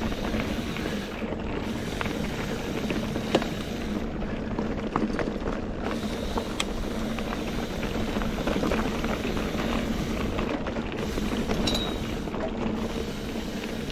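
NS Eccentric Chromo steel hardtail mountain bike rolling along a dirt trail: a steady rush of tyre and wind noise, with a few sharp clicks and rattles from the bike.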